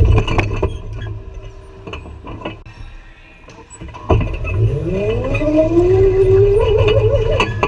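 Go-kart motor whining, fading as the kart slows, with a few sharp knocks near the start. About four seconds in it sets off again with a sudden jolt, and the whine climbs steadily in pitch as the kart accelerates, wavering near the end.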